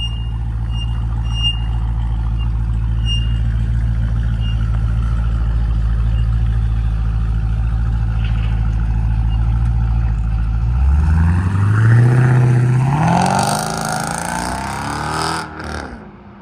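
2012 Jeep Grand Cherokee SRT8's 6.4-litre Hemi V8 running at idle through an exhaust with the mid muffler deleted and an X pipe fitted, rear mufflers kept. About eleven seconds in it revs up hard as the SUV accelerates away, and the sound fades as it drives off down the street.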